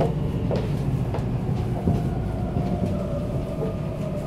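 Tokyo Metro 02 series subway car with VVVF inverter control, heard running from inside the car: steady rumble under a thin motor whine that slowly falls in pitch, with a few sharp wheel-on-rail clicks in the first two seconds.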